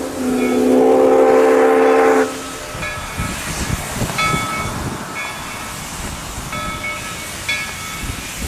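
Steam whistle of ALCO-built steam locomotive #97 sounding a loud blast that cuts off about two seconds in, as the engine departs. After it, a bell rings again and again over low pulsing and steam hiss.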